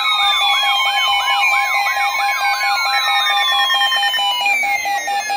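Several electronic weather-alert alarm tones sounding over one another. A steady tone pulses rapidly throughout, a warbling tone rises and falls about two or three times a second until about three seconds in, and long falling sweeps repeat every second or so.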